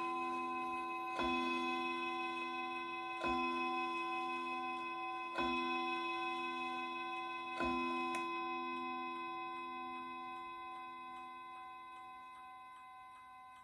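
Hermle mantel clock striking the hour on a gong rod: four deep strikes about two seconds apart, each ringing on, the last of the hour count. A light click follows shortly after the last strike, and the gong ringing slowly fades under the clock's steady ticking.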